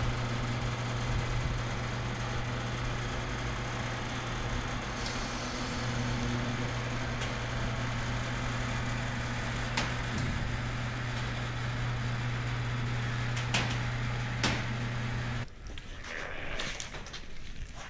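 Electric motor of an overhead hangar door humming steadily as the door rises, with a few sharp clicks along the way; the motor cuts off suddenly near the end.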